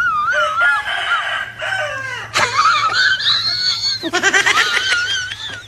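Shrill animal cries and squeals, wavering up and down in pitch, with a sudden rising cry about halfway through and a quick pulsing run of cries near the end.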